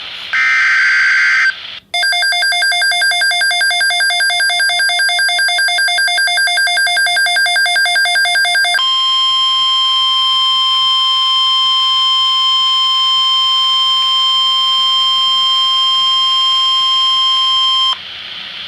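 NOAA Weather Radio alert broadcast over radio hiss: a one-second burst of SAME digital header tones, then a rapidly pulsing electronic alert beep for about seven seconds, then the steady 1050 Hz weather-radio warning alarm tone for about nine seconds, which cuts off suddenly.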